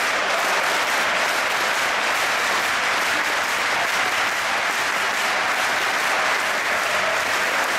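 Large ice hockey arena crowd applauding, thousands clapping at once in a steady, unbroken wash of sound.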